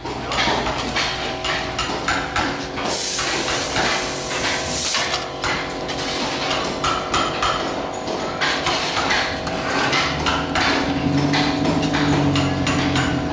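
Rapid, irregular hammer strikes on metal, with steady metallic ringing underneath, as gamelan instruments are made. A loud hiss cuts in for about two seconds around three seconds in, and a low drone joins near the end.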